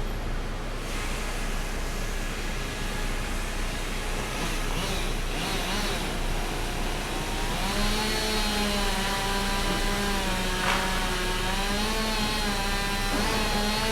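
Pallet sawmill machinery running steadily. About halfway through, a pitched machine whine with a wavering tone joins the noisy running sound.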